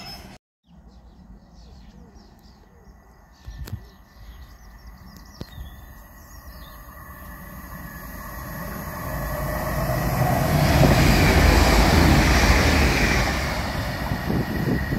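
TransPennine Express Class 185 diesel multiple unit approaching along the line, its rumble and rail noise swelling from about halfway through to a peak near the end. Birds chirp faintly in the first few seconds.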